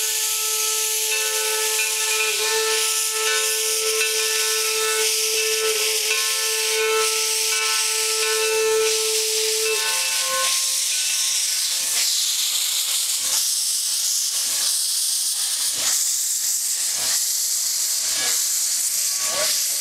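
Calumet & Hecla Mining Co. No. 3 steam locomotive blowing a steady steam whistle for about ten seconds over hissing steam from the cylinder cocks. The whistle then stops, leaving the hiss and slow exhaust chuffs, a little under one a second, as the locomotive pulls away.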